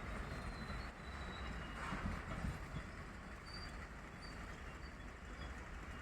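Passenger train arriving, its coaches rolling on the track with a steady low rumble and a few faint, brief high squeaks.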